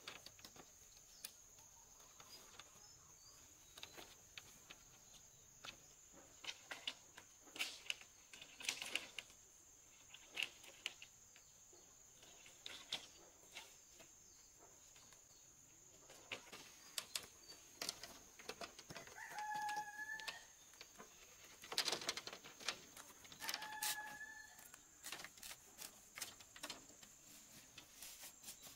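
Split bamboo strips tapping and clacking against each other as they are laid out and handled on grass, in scattered bursts, over a steady high insect drone. A bird calls briefly twice, a few seconds apart, about two-thirds of the way through.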